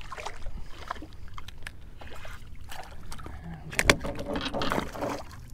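A spotted sea trout being landed beside a small flats boat: water splashing and scattered knocks and clicks against the boat, with a sharp knock about four seconds in, followed by a second of splashing.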